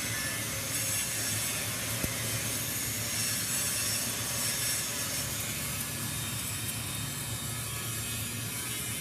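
Steady machine noise of metalworking in a fabrication shop, a continuous hiss over a low hum, with a single sharp click about two seconds in.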